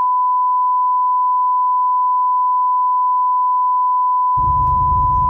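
A steady electronic beep tone at one high pitch, cut off suddenly. About four seconds in, a low rumble comes in underneath it.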